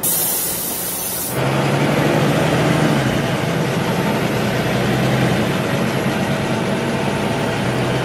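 Waterfall roaring: a steady rushing noise of falling water. It is brighter and hissier for about the first second and a half, then settles into a fuller, deeper roar.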